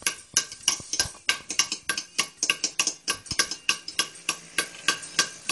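Hand chisel being struck with a hammer to carve a stone slab: a quick, even run of sharp metallic taps, about three to four a second, each with a short ring.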